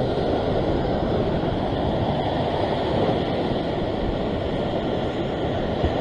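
Ocean surf washing over a flat rock ledge: a steady rush of churning, foaming seawater.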